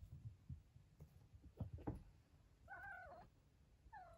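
A four-week-old kitten mewing twice: a longer, wavering mew about two and a half seconds in and a shorter one near the end. Soft low thumps come earlier from the kittens scrambling on a fluffy blanket.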